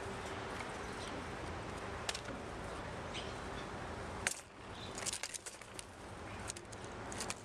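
A blue jay flying in and landing on a plastic feeder dish: a sharp click about four seconds in, then a run of light clicks and taps. A steady outdoor hiss lies under the first four seconds.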